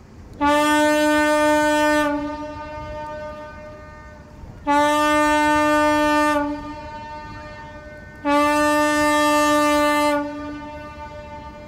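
Motor superyacht's horn sounding three long blasts, each just under two seconds and evenly spaced, a steady tone with many overtones. The blasts are a farewell salute on leaving.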